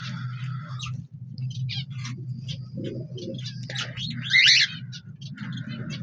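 Aviary birds, parrots among them, chirping and calling over and over, with one louder call about four and a half seconds in. A steady low hum runs underneath.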